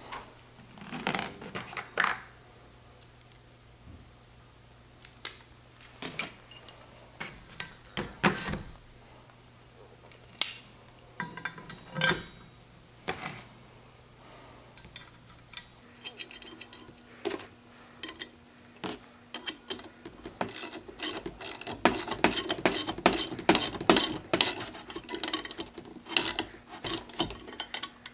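Steel bolts, washers and lock nuts clinking and knocking against the aerator's steel plates and shaft as they are fitted by hand, in scattered clicks; from a little past halfway the clicks come thick and fast as the nuts are tightened with a wrench.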